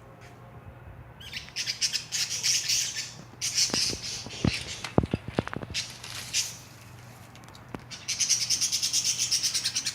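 Birds calling noisily in several bouts of rapid, chattering squawks, the longest near the end. A few sharp clicks fall in the middle.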